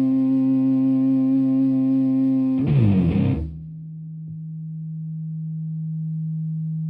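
Music: a held, distorted instrumental note that breaks into a quick downward pitch slide about two and a half seconds in, then a single lower note swelling slowly until the end.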